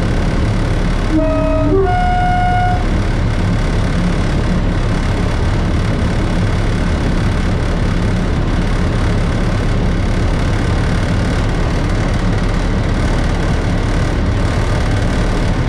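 Class 33 diesel locomotive's Sulzer eight-cylinder engine running steadily, heard from inside the cab. About a second in, the two-tone horn sounds briefly, a low note and then a higher one.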